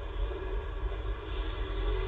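Steady road-traffic noise: a low rumble with a droning engine, growing slightly louder toward the end.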